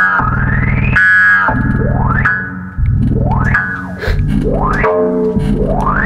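EMS Synthi VCS-3 synthesizer patch playing a rising pitch sweep that repeats about once a second, over a low buzzing drone that cuts in and out.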